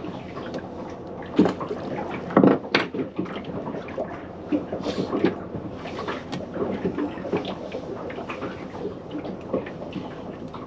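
Irregular knocks, clicks and clatter of fishing tackle and gear being handled on a small wooden boat, with the sharpest knocks about one and a half and two and a half seconds in.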